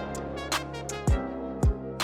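Background music with a steady beat: a kick drum about every half second under sustained instrumental tones.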